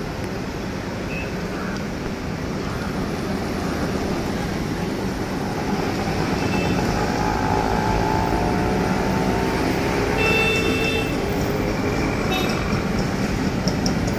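Road traffic of cars and a bus passing close. It grows louder about halfway through as the bus goes by, with a short high tone about ten seconds in.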